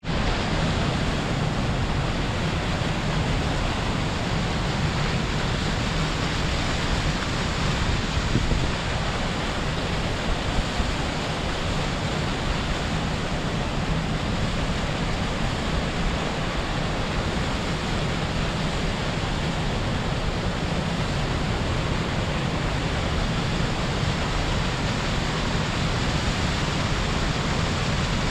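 Waterfall pouring steadily: a dense, even rush of falling water with a deep low rumble beneath it.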